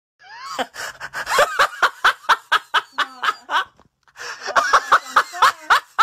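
Contagious laugh sound effect: a person laughing hard in rapid ha-ha pulses, about four or five a second, broken by a short pause about four seconds in.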